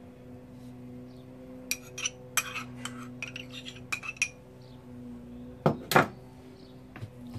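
A metal spoon clinking against a small bowl in light, short taps while a chopped vegetable filling is scooped out, then two louder knocks in quick succession near the end.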